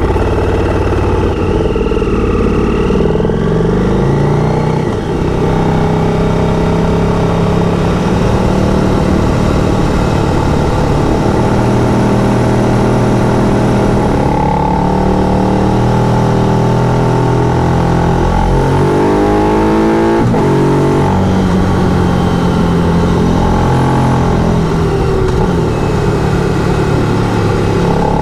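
Motorcycle engine under way. Its note climbs under throttle and drops back at each gear change, several times over.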